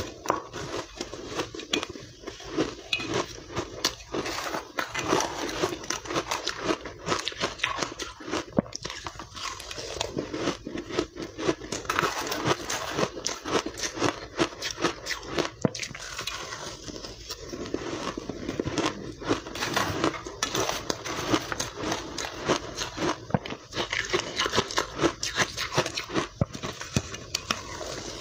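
Refrozen soft ice dusted with matcha powder being bitten and chewed, a dense run of crackling crunches one after another.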